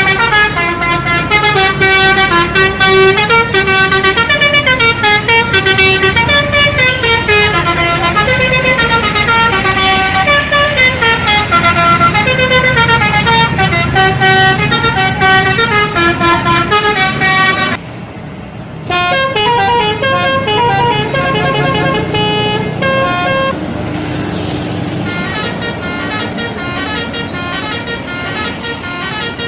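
Indonesian bus 'telolet' horns, multi-tone musical horns playing quick up-and-down melodies of short notes. The tune breaks off suddenly about 18 seconds in, and a different horn melody starts a second later, playing softer from about 23 seconds.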